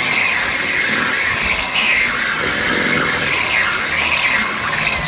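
An electric kitchen appliance motor running steadily, mixing mashed sweet potatoes and butter into pie filling.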